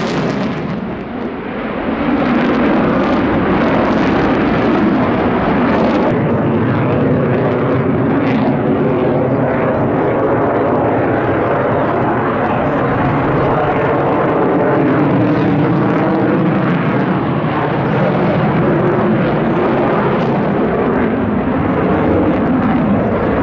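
Jet noise from a Sukhoi Su-35S fighter's twin afterburning turbofan engines during an aerobatic display, loud and continuous with a slowly wavering tone. It dips briefly about a second in, then rises and stays loud.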